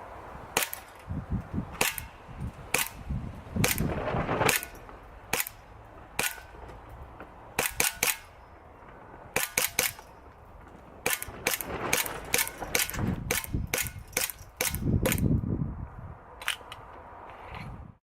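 ASG CZ 75 SP-01 Shadow gas blowback airsoft pistol firing a long string of sharp cracks as the slide cycles on each shot, some in quick pairs, broken by a few short pauses.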